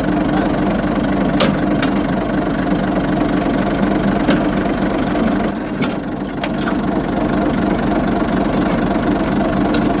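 Tractor engine idling steadily, with a few short sharp metallic clicks from the pins and bars of a mounted cultivator as it is fitted to the three-point hitch.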